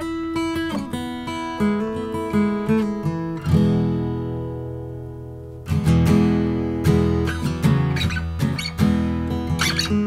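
1968 Gibson Hummingbird acoustic guitar being played: quick picked notes and chords, then a chord left to ring and fade about three and a half seconds in, then strummed chords again from a little before six seconds.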